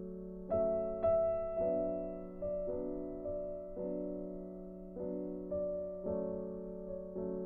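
Slow background piano music: sustained chords, a new one struck every second or so and left to ring and fade.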